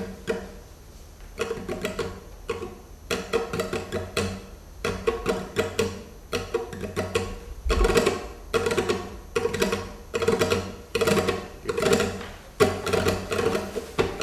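Flamenco guitar strummed with quick right-hand finger rasgueado strokes. It plays short, sharp bursts of chords with brief pauses between the phrases.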